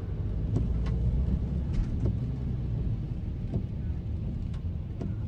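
Car driving on a wet road in heavy rain: a steady low rumble of road and engine, with a few scattered light ticks.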